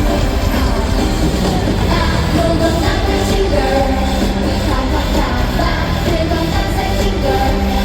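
Live pop song with singing over a loud backing track, played through a concert sound system.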